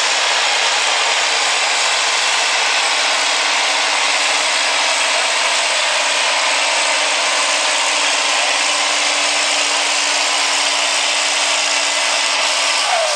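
International farm tractor's diesel engine at full throttle, hauling a weight-transfer sled in a tractor pull: a loud, steady run with a dense exhaust and turbo hiss. Just before the end the steady engine tone cuts out as the load or throttle comes off.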